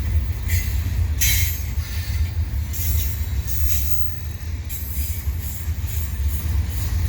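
Freight train cars rolling past with a steady heavy low rumble, and short high-pitched bursts of wheel squeal recurring about once a second.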